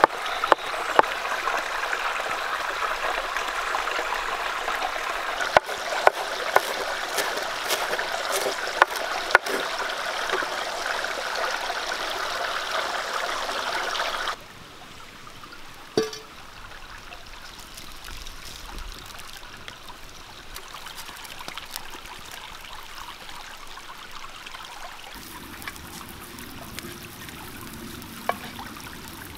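Steady rushing of a flowing stream, with a few sharp knocks of a cleaver chopping cheese on a wooden board over the first ten seconds. About halfway through the stream sound drops suddenly to a quieter background.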